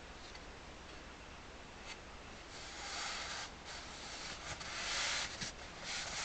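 Hands rubbing and smoothing grille cloth flat onto an aluminium accordion grille to set it in super glue. The soft brushing comes in several strokes, starting a couple of seconds in.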